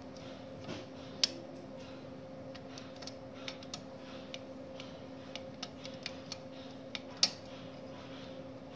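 Front-panel navigation and OK buttons of a StorageTek SL48 tape library being pressed, giving a string of small clicks with two louder ones, about a second in and near the end. Under them runs a steady low hum.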